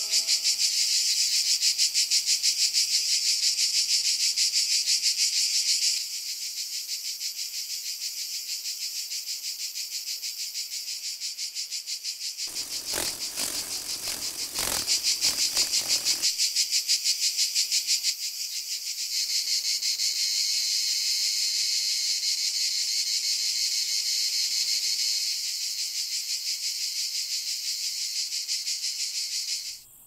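Cicadas singing: a shrill, rapidly pulsing buzz that steps up and down in loudness, with a rougher, fuller stretch about halfway through. It cuts off suddenly at the end.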